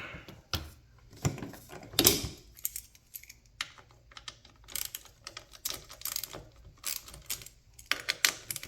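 Small metal steering-column parts clicking and clinking irregularly as they are handled and pushed together on the shaft, with a few louder knocks in the first couple of seconds.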